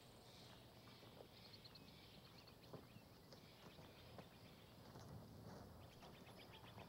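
Near silence: faint outdoor ambience with small birds chirping softly now and then.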